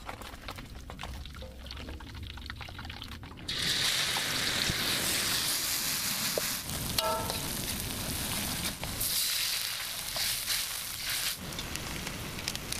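Food frying in hot oil: a dense sizzle sets in suddenly about three and a half seconds in and carries on, after a quieter start with scattered clicks.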